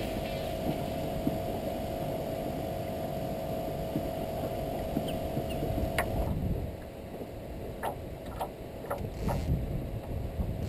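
Outdoor rumble of wind and water around a drifting fishing canoe, with a steady hum. About six seconds in, the level drops a little and a few short, light clicks follow.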